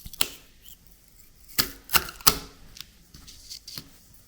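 Several sharp clicks and brief rips, four of them louder: washi tape being pulled and torn against the teeth of a 3D-printed plastic tape cutter.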